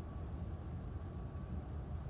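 Steady low rumbling storm ambience at night, with no sudden thunder crack, and a faint steady high tone running underneath.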